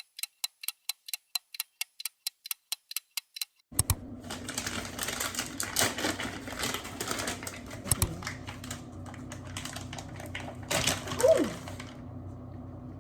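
A typewriter-style clicking effect, about four to five keystrokes a second over dead silence, for the first few seconds. Then room sound with irregular rustling and clicking.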